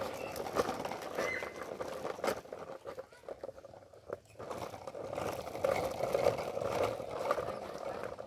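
Small hard plastic wheels of a toddler's ride-on toy rolling and rattling over rough asphalt, getting louder after about five seconds, with scattered footsteps.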